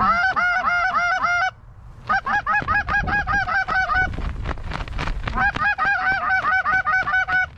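Canada goose call blown by a hunter in fast runs of short, identical clucks, about five a second, in three bursts with brief pauses between.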